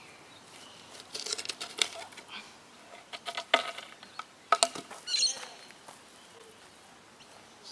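Irregular sharp clicks and rustles from a rope-and-lightning-cable swing being handled and loaded, with a brief high chirp about five seconds in.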